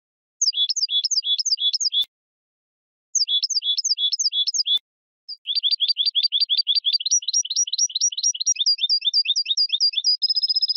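European goldfinch singing: two short phrases of five or six quick notes, each note sliding down in pitch, then a long fast trill of many notes that slowly climbs and ends in a held buzzy note.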